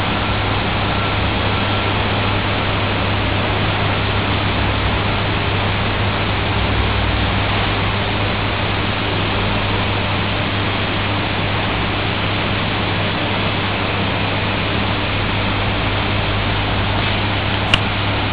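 Steady loud rushing noise with a low hum underneath, and a single click near the end.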